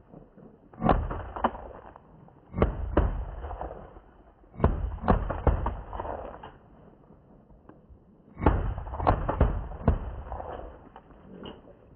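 Four shotgun shots from a 16-gauge, each a heavy, drawn-out boom that fades over about a second and a half. The first comes about a second in, the next two about two seconds apart, and the last about eight seconds in.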